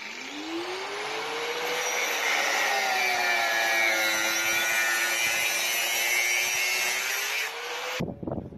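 An engine running, its pitch rising over the first second or two and then wavering, cut off suddenly near the end. Then a short burst of crackling from arc welding on the steel chassis.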